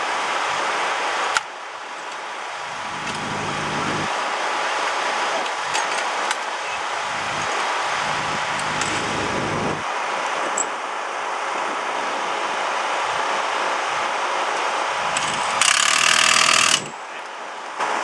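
An impact wrench rattles in one loud burst of about a second near the end, spinning the rear axle nut during a pit-stop rear wheel change on a sportbike. Under it runs steady background engine noise, with a few clicks from the crew working on the wheel.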